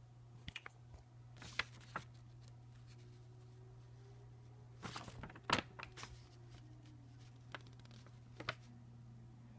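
Faint, scattered rustles and clicks of a package and its paper contents being handled and opened, the busiest stretch about five seconds in, over a steady low hum.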